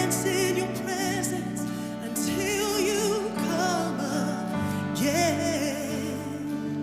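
Live worship music: a singer with vibrato holding long phrases over sustained chords.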